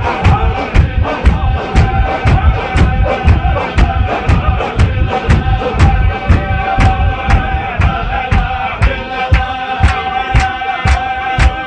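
A large crowd chanting together to a steady pulse of loud, sharp beats, about two a second.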